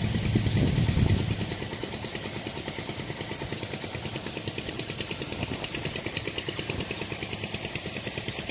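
Engine running steadily with a fast, even beat, heavier and louder for the first second or so and then holding steady.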